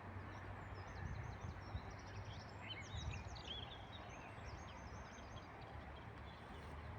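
Faint birdsong: quick high chirps and trills from about one to six seconds in, over a steady low hum.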